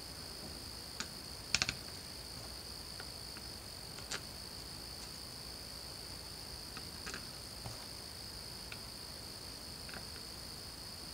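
A few small, sharp clicks of tiny screws and the plastic rear motor cap of a cordless impact driver being handled as the screws are set into the cap by hand, with a quick cluster of clicks about a second and a half in. A steady high-pitched whine runs underneath.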